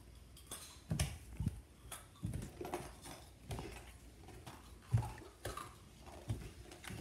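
Footsteps on a wooden floor indoors: irregular soft thuds about one or two a second as someone walks, the heaviest about five seconds in.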